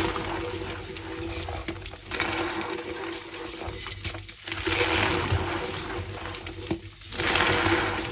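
Reformed and pasted gym chalk being squeezed and crushed, making wet, squishy squeaking in repeated swells a couple of seconds apart.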